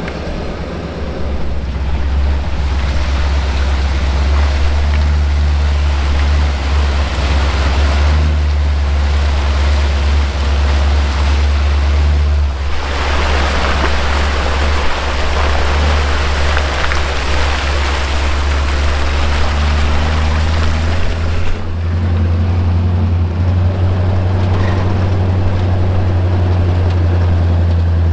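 Recovery truck driving off-road in four-wheel drive with its hubs locked in, the engine giving a steady low drone. A loud rushing noise from the wheels on the trail runs over it and eases off about three quarters of the way through, leaving the engine drone.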